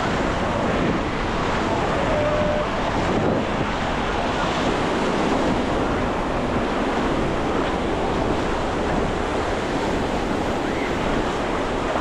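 Sea surf washing steadily onto a sandy beach, with wind buffeting the microphone.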